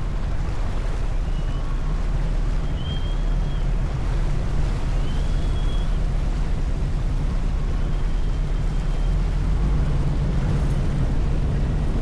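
A passenger ferry's engines running with a steady low drone, with wind on the microphone and water rushing along the hull. A few faint, short high-pitched tones sound now and then over it.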